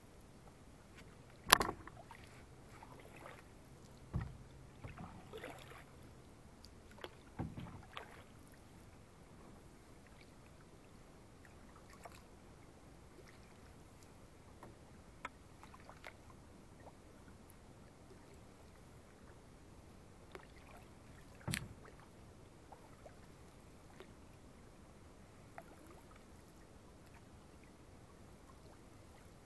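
Quiet canoe paddling on calm water: soft paddle strokes and drips, with occasional sharp knocks in the canoe, the loudest about a second and a half in and another around two thirds of the way through.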